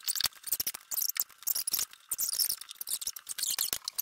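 Household items being handled and moved about: a dense, irregular run of quick clicks, scrapes and small squeaks.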